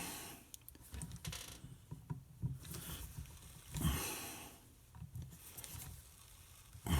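Scattered small clicks and taps, with a few short scrapes, of hand work on the cam cover screws of a 1939 Harley-Davidson ULH engine.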